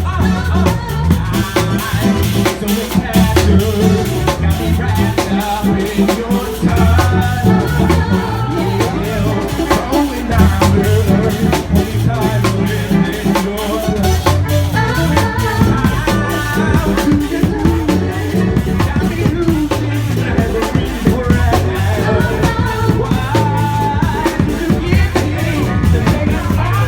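Loud music with a steady drum beat, a repeating bass line and singing.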